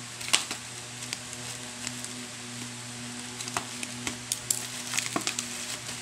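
Plastic packaging crinkling and crackling as a bubble-wrapped parcel is handled in a plastic courier bag: irregular crackles and clicks over a steady low hum.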